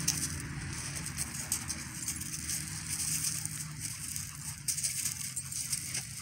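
Two dogs play-wrestling on gravel, with faint scuffing and crunching of paws, over a steady low hum.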